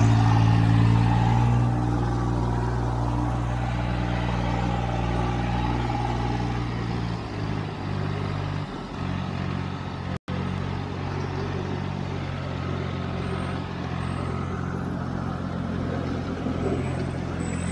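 Turbocharged tractor diesel engine running steadily under heavy load while it drags a weighted 20-disc harrow through the soil. Its note shifts and eases about seven to nine seconds in, and the sound cuts out for an instant a little past ten seconds.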